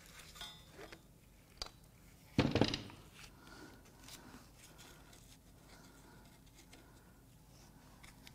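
An aluminium engine cylinder head being handled and tipped up on a workbench: a light click, then one heavy clunk about two and a half seconds in, and faint scraping.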